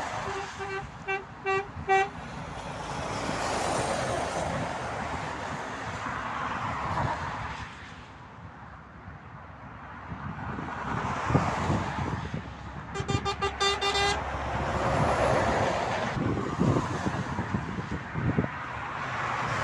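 Motorway traffic passing, with a vehicle horn tooting at one steady pitch: about five short toots near the start, then a quicker string of toots about two-thirds of the way through.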